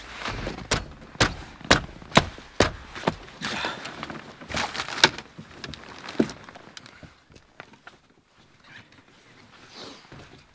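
Footsteps crunching in deep, very cold powder snow, a run of sharp steps about two a second, dying away after about six seconds.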